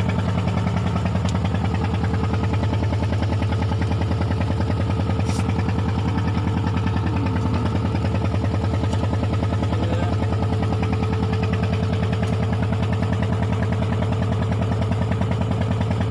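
Wooden fishing boat's engine running steadily with a fast, even throb.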